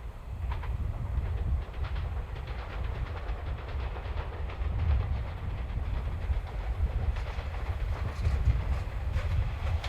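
Train running past with a low rumble and wheels clicking over the rail joints.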